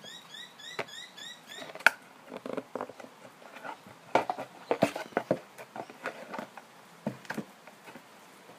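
Scissors cutting a plastic ice cream box: irregular snips and crackles of the plastic, in bunches about two, five and seven seconds in.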